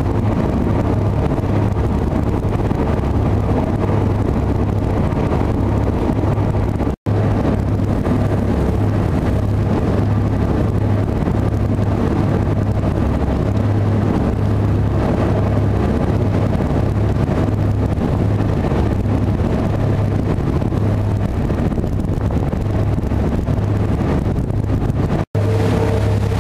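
Fast ferry's engines running at a steady cruise, a constant low drone, with rushing water and wind on the microphone over it. The sound cuts out for an instant twice.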